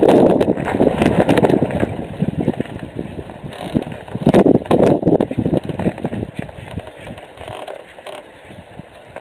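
Wind buffeting the nest-box camera's microphone in gusts: a loud rumbling rush that swells and eases, with scattered knocks and crackles, dying down over the second half.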